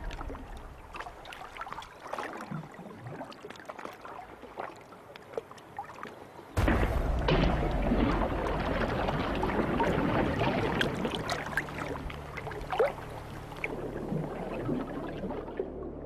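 Water dripping and splashing as an arowana leaps from a rainforest river: scattered drips at first, then a sudden heavy splash about six and a half seconds in as the fish crashes back, churning on for several seconds before it settles.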